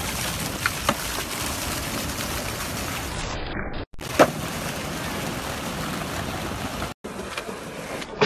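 Skateboard clacks on pavement, tail pops and landings: two quick ones about a second in, a sharp loud one about four seconds in, and lighter ones near the end, over a steady rush of splashing fountain water and then seaside wind and surf.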